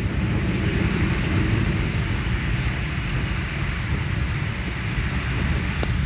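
Steady car cabin noise while driving: engine and tyre rumble on a wet, muddy road, heard from inside the car.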